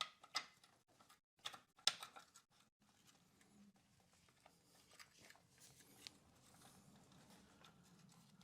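A few faint, sharp clicks and taps of metal hand tools working a motorcycle oil-pan drain plug in the first two seconds, then near silence with a faint low hum.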